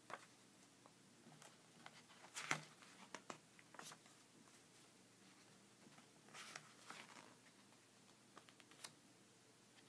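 Faint rustles and soft taps of a hardcover graphic novel's paper pages being handled and turned, the loudest about two and a half seconds in.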